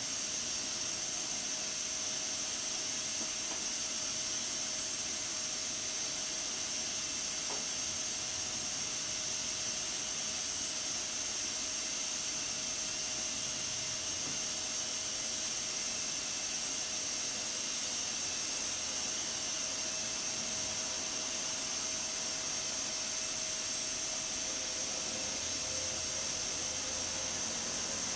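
Pressure cooker's weighted pressure valve venting steam in a steady hiss while the pot is held at full pressure. A faint steady tone runs under the hiss.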